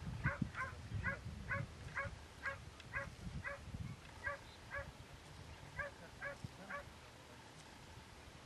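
A series of short, evenly repeated animal calls, about two a second, stopping shortly before the end, over a low rumble.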